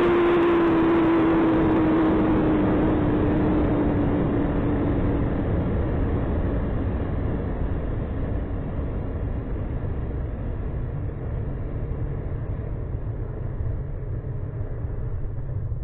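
Wind rushing over an Estes Panavia model rocket's onboard camera in flight. A whistle slides slowly down in pitch and fades out about five seconds in, and the rushing eases gradually.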